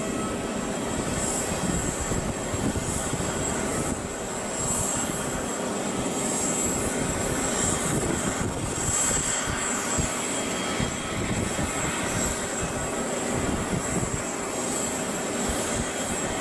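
Steady jet-aircraft whine and rumble on an airport apron, with a high thin whistle held throughout.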